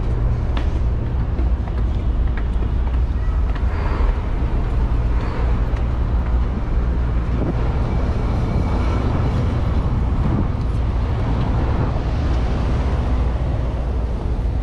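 City street ambience: road traffic going by with a steady low rumble, no single sound standing out.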